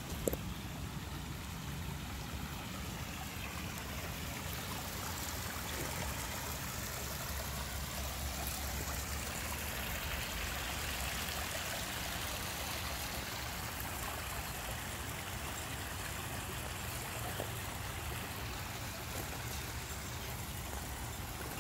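Water running and trickling over the stones of a small garden waterfall into a pond: a steady splashing flow, loudest about halfway through.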